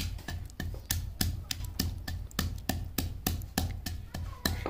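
Wooden pestle pounding green chillies and dried pomegranate seeds in a stone mortar: an even run of sharp thuds, about four a second.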